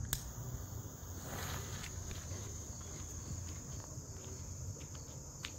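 Crickets trilling steadily in a high, even chorus, with a sharp click of a hand lighter just after the start and another small click near the end.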